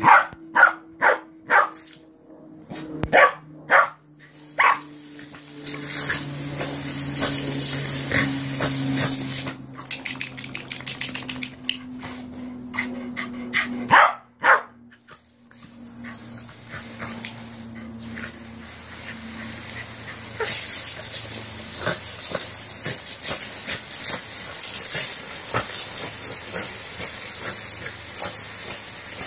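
A corgi barks in short bursts: a quick string of about six barks in the first two seconds, a few more around three to four seconds in, and two about halfway through. Between and after the barks, a jet of water spraying over the grass hisses steadily.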